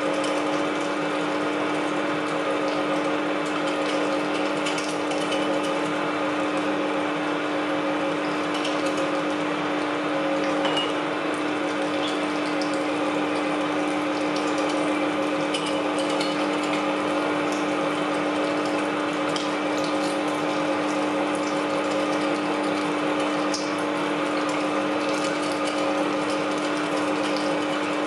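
Electric meat grinder running steadily, its motor giving a constant even-pitched hum while meat is forced through the cutting plate and extruded as mince.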